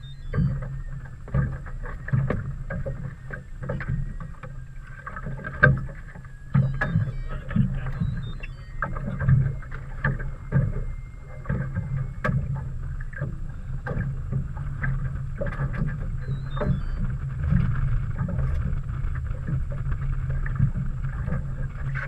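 A small boat on the water: irregular knocks and slaps against the hull over a steady low hum.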